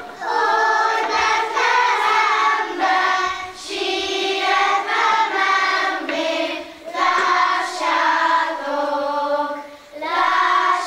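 Children's choir singing a Hungarian Christmas carol about the shepherds, phrase after phrase with short breath pauses between.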